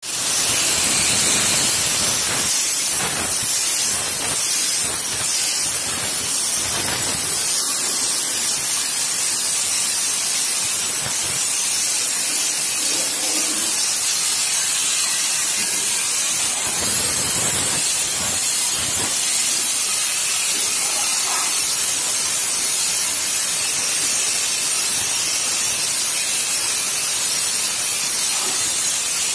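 Aluminium wire metallizing spray gun running continuously: a steady hiss as its gas and air jet sprays molten aluminium onto the steel girders.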